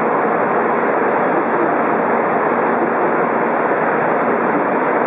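N700 series Shinkansen train standing at a station platform, giving out a loud, steady rushing noise that does not change.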